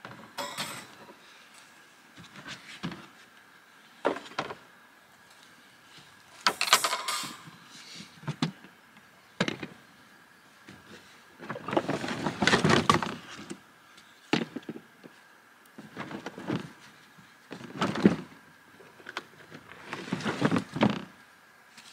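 Split firewood being handled out of a plastic storage tote: intermittent wooden knocks and clatter with rustling, several sharp single knocks between longer stretches of handling.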